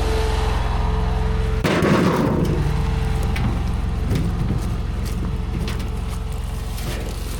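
Mini compact track loader's engine running steadily under work, with a steady whine that stops about a second and a half in. A brief burst of rushing noise follows, then scattered clanks and rattles.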